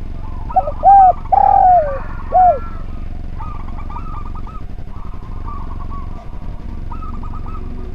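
Spotted dove cooing: one loud three-note phrase about a second in, with a short note, a long falling note and a short note. Behind it a softer, rapid, stuttering bird call recurs every couple of seconds.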